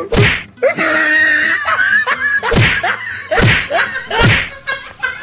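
A string of slapstick punch and slap hits: one at the start and three more about a second apart near the middle. A drawn-out cry sounds between the first hit and the rest.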